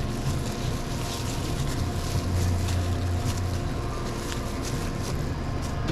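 Steady low hum and drone of sandwich-shop equipment such as fans and refrigeration, with faint light clicks and rustles of sandwich making over it.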